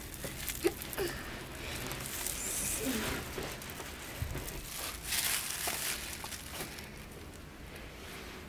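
Thin plastic packets crinkling and rustling as spice sachets are opened and handled, with a few light clicks, loudest about five seconds in.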